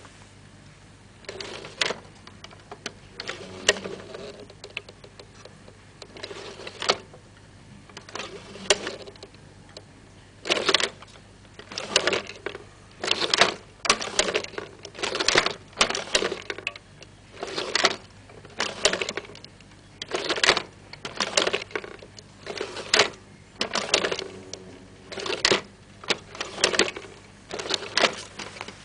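Hand-cranked articulated figure's mechanism clattering as its jointed legs and arms are worked: short rattling clacks, a few scattered at first, then from about a third of the way in a steady beat of roughly one a second.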